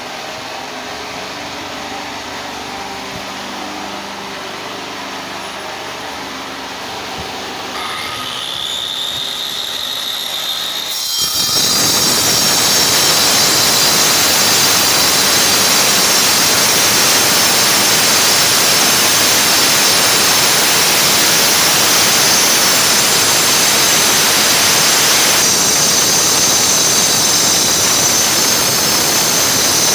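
Electric angle grinder with a cutting disc. A quieter motor hum first, then from about eleven seconds in a loud, steady grinding as the disc cuts along the edge of a stone slab.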